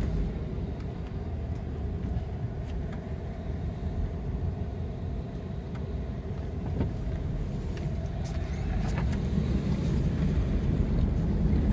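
Car driving along, heard from inside the cabin: a steady low rumble of engine and tyre noise, growing a little louder near the end, with a few faint clicks.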